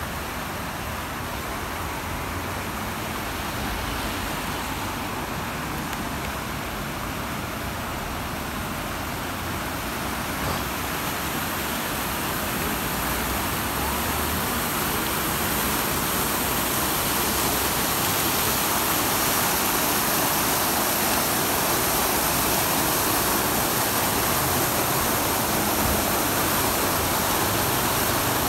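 Splashing water from an ornamental fountain and water channel, a steady rushing hiss that grows louder through the second half.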